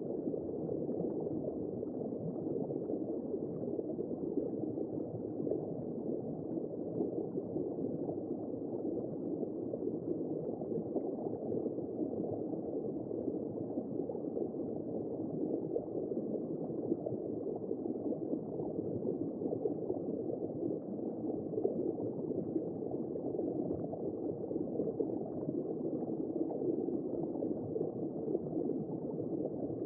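Womb-sound white noise: a steady, muffled whooshing with no high tones, like fluid rushing heard from inside the body.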